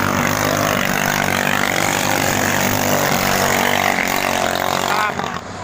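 Several racing ketinting longtail boat engines, small Chinese-made motors, running hard together in an overlapping drone with pitches bending up and down. The sound drops away somewhat about five seconds in.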